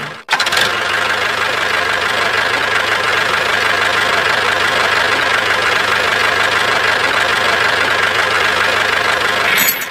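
Steady engine running sound for a miniature toy tractor, even and unbroken with a constant high whine, apart from a brief drop-out just after the start.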